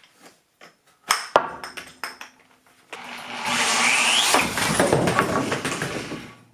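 A few sharp knocks about a second in, then a power drill boring a large hole through a wooden stud for about three seconds, its pitch rising partway through, before it stops.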